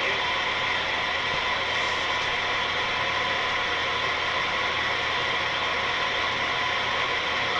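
CB radio receiver hissing with steady band static on the 11-metre band, no station coming through the noise.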